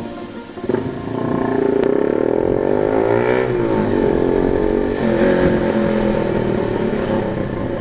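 Keeway RKS 150 motorcycle engine running through an SC Project exhaust with no dB killer fitted, very noisy. About a second in it gets loud, and the revs rise to a peak a little past three seconds and fall back before it settles into steadier running.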